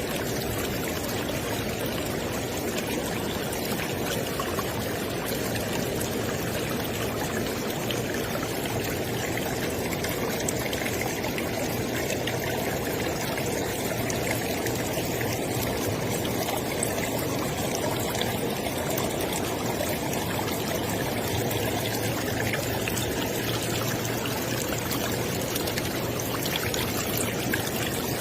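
River water flowing steadily over rocks, an even, unbroken rushing and splashing.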